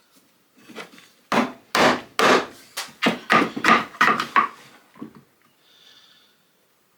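Wooden pieces knocking and clattering as they are handled: a run of about ten sharp wooden knocks, the last dying away about five seconds in.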